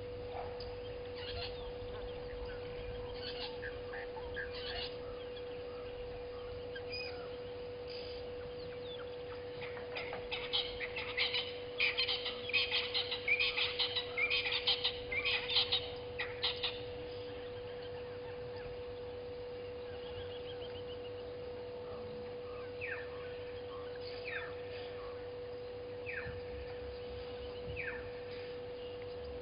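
Wild birds calling: a dense run of quick chirps for several seconds around the middle, then a few single short falling calls, over a steady electrical hum tone in the camera's audio.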